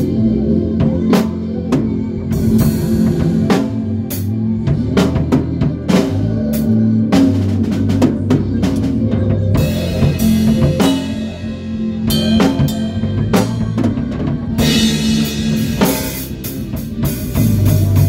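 Acoustic drum kit played with sticks in a steady groove, with kick, snare and cymbal strokes and long crash-cymbal washes near the middle and again a few seconds later. Held low pitched notes from a bass instrument sound beneath the drums.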